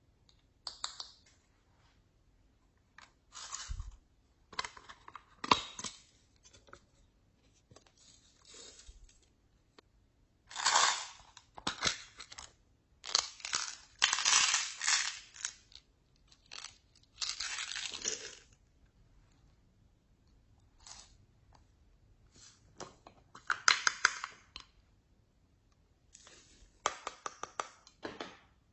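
Slime being mixed and worked by hand: irregular short bursts of sticky noise and clicks with quiet pauses between them.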